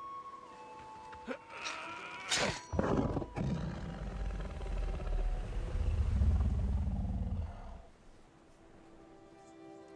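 Giant sea monster's roar, a film creature sound effect: a sudden high cry sweeping downward about two and a half seconds in, then a long deep rumbling growl that fades out about eight seconds in.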